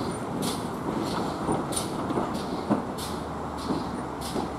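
GWR 1366-class 0-6-0 pannier tank locomotive No. 1369 moving slowly under steam. Its exhaust beats in short, hissy chuffs a little under two a second.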